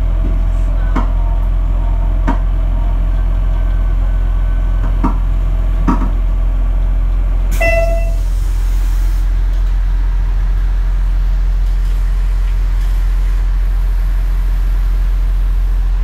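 Diesel railcar engine idling steadily, with a few knocks and clicks in the first six seconds. About halfway through comes a short pitched toot, followed by a brief hiss.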